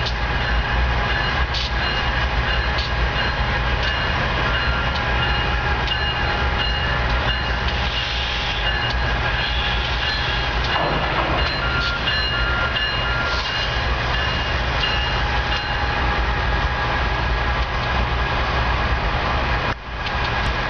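BNSF diesel locomotives running in a rail yard during a switching move: a steady low engine rumble with constant whines above it and occasional clicks or knocks.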